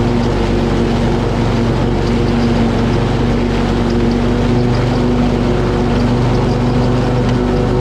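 Riding lawn mower's engine running steadily under load while mowing, with an even, unchanging drone.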